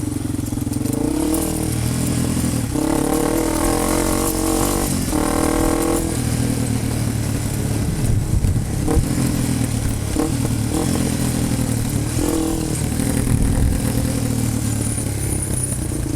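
Off-road vehicle engine running, revving up in pitch several times in the first six seconds, then running more steadily.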